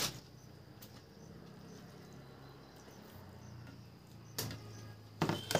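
Quiet room with a few sharp clicks, one at the start and a few more near the end: a metal spoon knocking against a glass bowl as broth is spooned onto rice.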